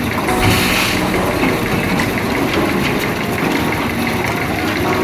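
Engine of a concrete mixer running steadily. A short rush of noise comes about half a second in.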